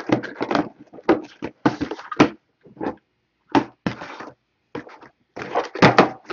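Small sealed cardboard trading-card boxes picked up and set down on a tabletop as they are stacked: a quick, irregular series of dull knocks and clatters.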